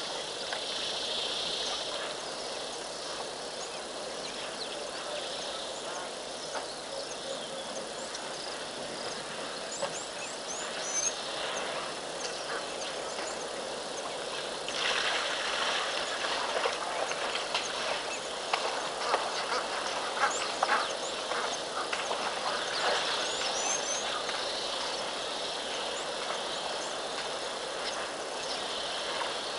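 Outdoor ambience of birds calling with short, high chirps over a steady hiss, with many scattered short snaps and crackles, busier in the second half.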